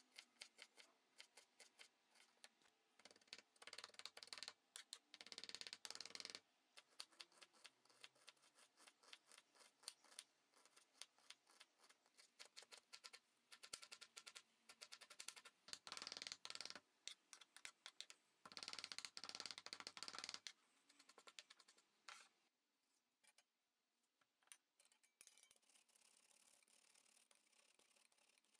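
Faint knife chopping of fresh vegetables on a cutting board: quick runs of light taps broken by short pauses, thinning out near the end.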